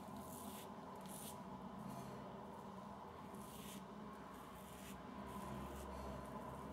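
Wilkinson Sword double-edge safety razor scraping over lathered facial skin in a few short, faint, scratchy strokes.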